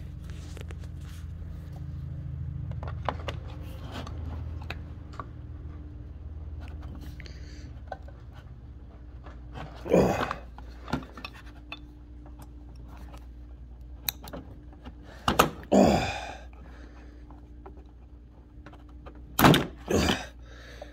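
Scattered knocks and thunks, several of them loud and short, from working a tight screw loose on a small-engine carburettor with a large Phillips screwdriver.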